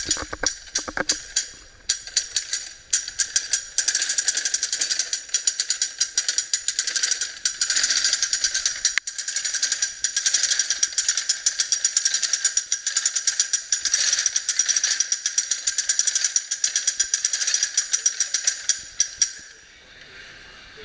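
Hand-cranked mechanical braiding machine running: its gears and bobbin carriers clatter in a fast, continuous stream of sharp clicks, uneven at first and stopping shortly before the end.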